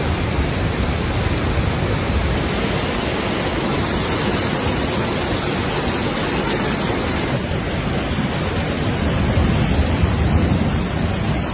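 Rushing floodwater: a loud, steady noise of fast-flowing water, with slight shifts in tone where the footage changes about two and seven seconds in.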